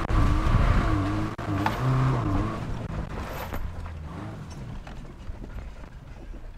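Subaru Forester's flat-four engine running as the lifted car drives over rough dirt, its pitch rising and falling; loudest for the first two seconds, then fading.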